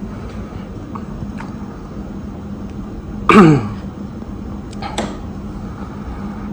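Kichler Statmoor hugger ceiling fan running with a steady low hum. About three seconds in, a person clears their throat once, briefly and loudly, the pitch falling; a small click follows near five seconds in.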